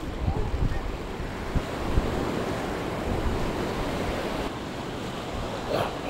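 Small waves washing up on a sandy shore, with wind gusting on the microphone.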